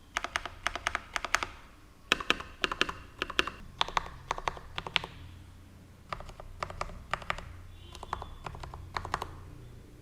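Modded stabilized keys on a Leopold 980M mechanical keyboard being pressed repeatedly, in about five quick runs of sharp keystroke clacks with short pauses between.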